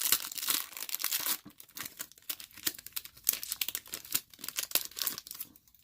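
Foil wrapper of a retail baseball card pack being torn open and crinkled, with the cards sliding out: a dense run of crackling rustles, loudest in the first second and a half, tapering off near the end.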